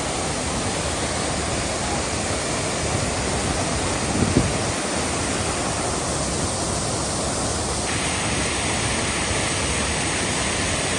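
Waterfall, the falling water making a steady, even rush, with a brief low thump about four seconds in.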